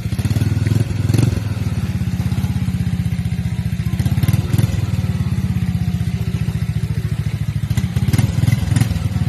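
Engine of a small off-road vehicle running steadily, swelling louder briefly about a second in, around the middle and near the end, with some knocks and clatter.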